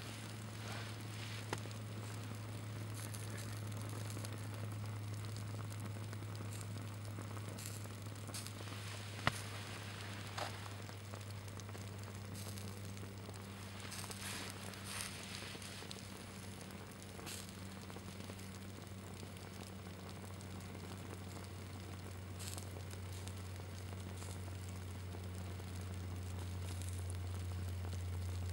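Small flames burning and melting the hem of a synthetic Adidas sport shirt, with faint crackling and sizzling and a few sharp ticks. A steady low hum runs underneath.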